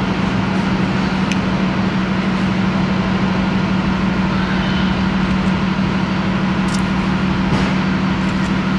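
Steady running hum of a motor vehicle: a constant low drone over an even rumble, with a couple of faint clicks.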